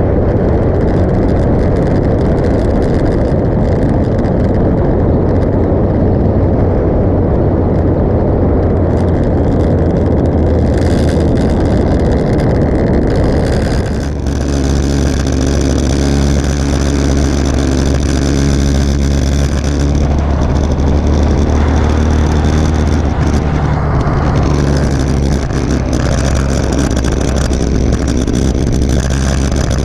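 Motorcycle engine running at road speed, with heavy wind noise on the bike-mounted microphone. About halfway through, the engine note changes and settles into a steadier, clearer tone.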